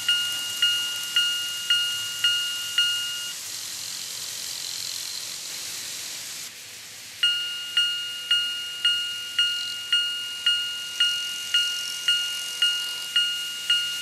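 Electronic warning bell of a TOMIX 5555 TCS automatic level crossing set, a two-tone ding repeating about twice a second. It stops about three seconds in, leaving the steady hiss and whir of an N-gauge train running on the track, and starts ringing again about seven seconds in.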